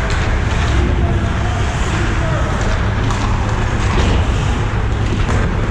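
Ice hockey rink ambience during play: a steady low rumble and noise with a few sharp clacks from play on the ice, and voices talking under it.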